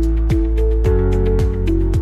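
Background music with a steady beat: a deep kick drum about twice a second, held melodic notes, and ticking hi-hats.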